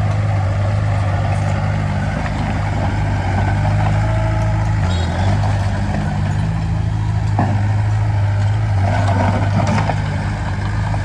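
Diesel engine of heavy construction machinery running steadily, a deep even hum with a brief dip about halfway through.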